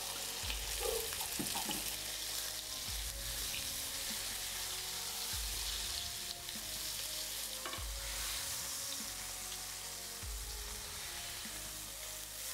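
Flour-dredged veal fillets frying in olive oil in a pan: a steady sizzle, with a few light clicks as tongs turn the fillets.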